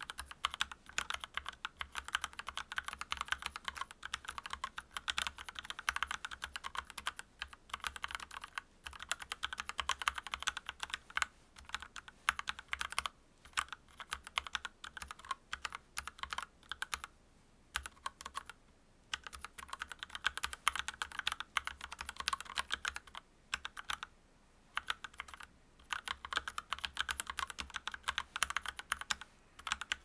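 Steady typing on an Akko 3061 Neon mechanical keyboard fitted with Gateron Pink linear switches (45 gf), a dense run of keystroke clacks broken by a few short pauses, the longest about a second and a half just past the middle.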